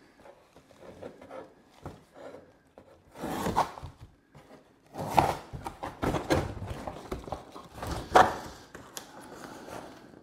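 Cardboard packaging being handled and torn away from a bicycle front wheel: irregular rustling and scraping of cardboard with a few louder tearing bursts, the sharpest about eight seconds in.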